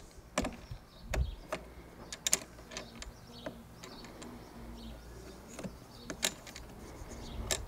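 Irregular light clicks and taps of a plastic threaded handle knob being worked onto a coach bolt at a lawnmower's handle joint, as it is turned and fiddled to catch the thread.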